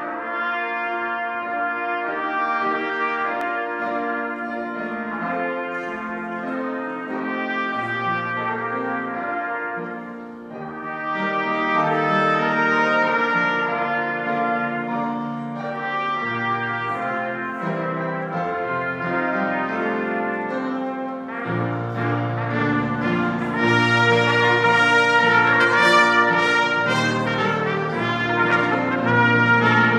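Two trumpets playing a melody together over Yamaha grand piano accompaniment, growing louder about two-thirds of the way through.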